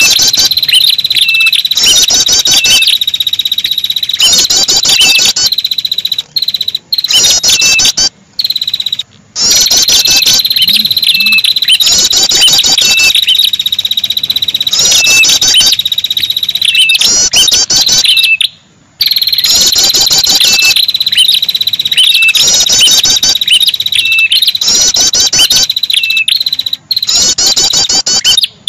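Bird-lure recording of ashy tailorbird (red-headed prenjak) calls: repeated bouts of quick, curling high-pitched notes about every two seconds, with short lower notes between them, over a steady high-pitched insect-like drone. The track is broken by several brief silent gaps, the longest about two-thirds of the way through.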